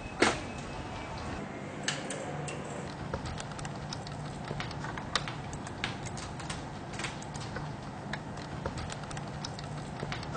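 Typing on a computer keyboard: irregular key clicks over a steady low room hum.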